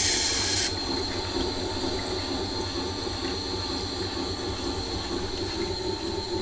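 Tormek wet grinder running, a knife edge hissing against the turning wet stone until it stops under a second in. The machine runs on with a steady low hum and the wet stone turning.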